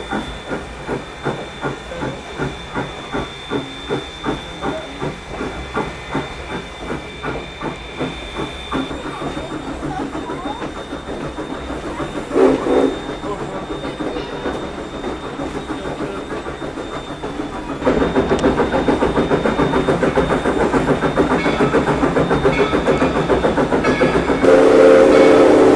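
Valley Railroad No. 97, a 1923 ALCO 2-6-2 steam locomotive, running with hissing steam and an even beat of about two and a half pulses a second, growing louder about eighteen seconds in. Its steam whistle sounds a steady chord near the end.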